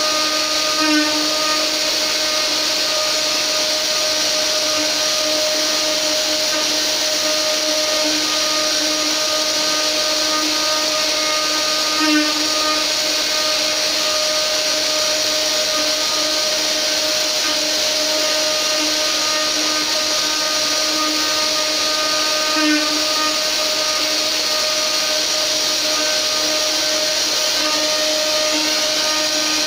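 Spindle of a 500 W mini CNC router running steadily with a high whine while its small bit mills a wood relief, briefly louder three times, about a second, twelve seconds and twenty-three seconds in.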